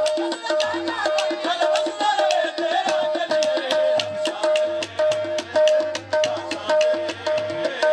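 Qawwali music: harmonium notes over a fast tabla and hand-clap beat, with a singing voice in the first few seconds.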